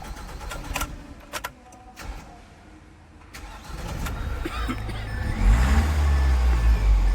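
Light clicks and knocks of handling at first, then about four seconds in the Mahindra Marazzo's common-rail diesel engine comes up, rising in pitch and running loud and low for the last two seconds.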